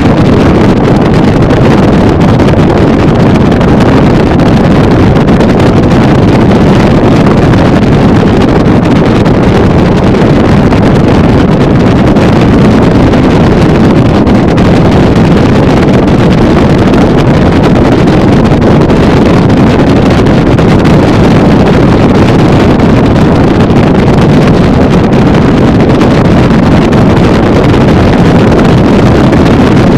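Motorboat running at speed, about 40 mph, a loud steady rush of wind over the microphone mixed with the engine and the hull running on the water, with no change throughout.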